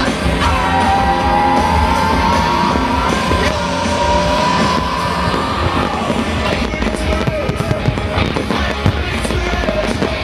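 Loud show soundtrack music with long held and gliding tones, with fireworks popping and crackling over it, the pops thickening in the second half.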